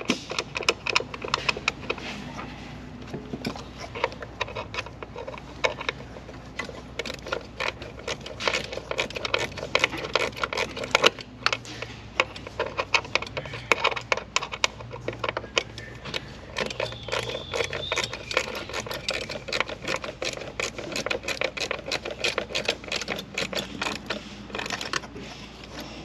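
Hand ratchet clicking rapidly in long runs as a bolt is run in and tightened by hand.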